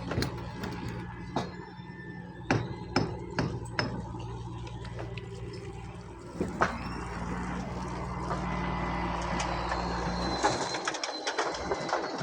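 A machine hums steadily, with scattered sharp knocks and clicks over it. The hum cuts out briefly near the end.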